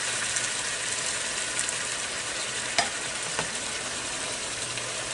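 Chicken pieces with onion and tomato sizzling in a frying pan while being stirred with a spatula: a steady frying hiss, with two sharp clicks a little past halfway.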